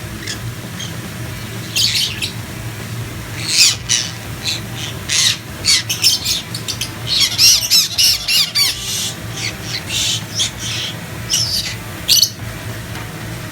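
Pineapple green-cheeked conures squawking: many short, sharp high calls in quick runs, starting about two seconds in and stopping shortly before the end, over a steady low hum.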